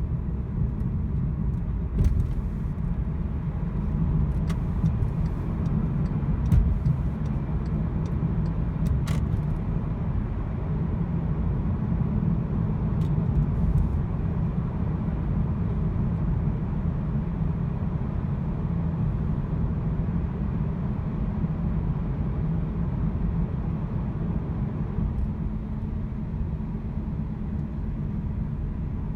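Volkswagen car under way with a misfiring engine: a steady low engine and road rumble, with a few sharp knocks in the first ten seconds.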